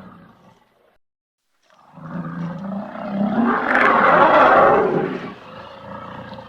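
Elephant calling: a low, growling roar that starts about two seconds in after a short silence, swells to its loudest in the middle, then eases into a quieter drawn-out rumble. The tail of the previous call fades out at the very start.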